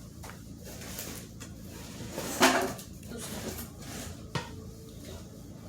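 Rachael Ray cookware pots and lids being handled and set down, with scattered knocks and clatter; the loudest is a single clank about two and a half seconds in, and a sharp click follows a little after four seconds.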